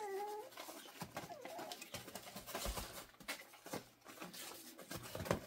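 Young puppies whimpering and whining in short high calls, one at the very start and another about a second in, over the pattering and scuffing of small paws on plastic sheeting and wood shavings.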